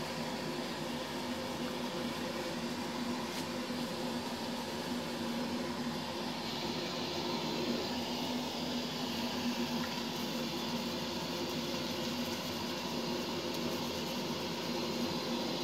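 Steady hum of a bathroom extractor fan: a low tone over an even hiss.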